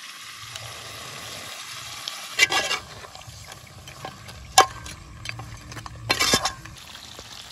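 Spoon or ladle stirring spiced chicken in a cooking pot as salt and masala powders are mixed in, over a steady faint sizzle. Three louder scrapes and clinks of the utensil against the pot stand out.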